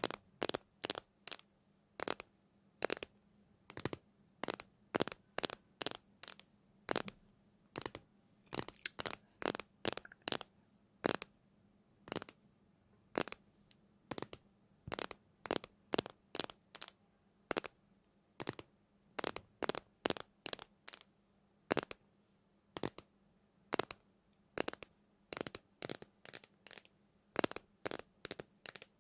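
A long run of short, crisp crunches or cracks, irregular, about two or three a second, over a faint steady hum.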